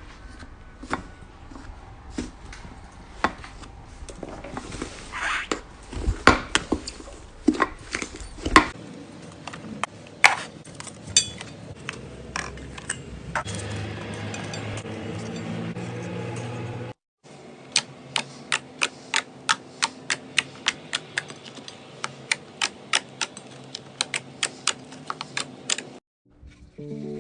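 Slime being squeezed and poked by hand, giving a run of crisp clicks and pops across several short clips. In the last clip the clicks come fairly evenly, about two or three a second.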